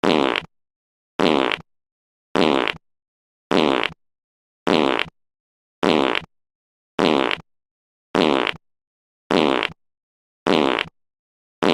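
A fart sound effect on a loop: the same short fart, about half a second long, repeats roughly every second and a bit, ten times, with silence between each.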